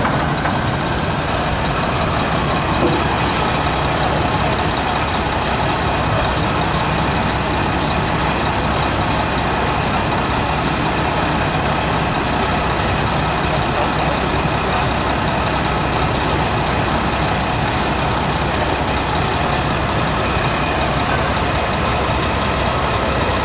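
Busy city street traffic: trucks, buses and cars running in steady traffic, with a brief high hiss about three seconds in.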